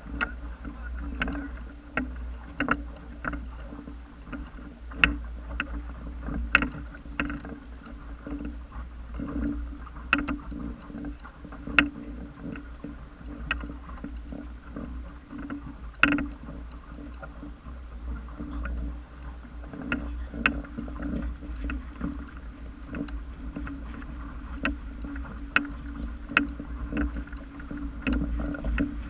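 Water slapping and splashing against the wooden hull of a small sailing dinghy under way: irregular sharp slaps, a few a second, over a low steady rumble.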